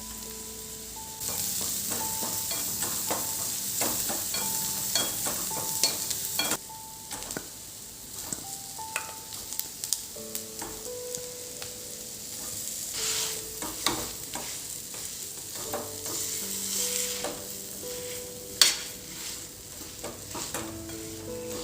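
Household cleaning noises over soft background music with a simple melody: a steady rubbing hiss for about five seconds, then scattered light knocks and clicks of things being handled and set down, with one sharper knock near the end.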